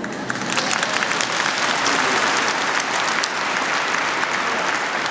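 A large crowd applauding, the clapping swelling up within the first half second and then going on steadily.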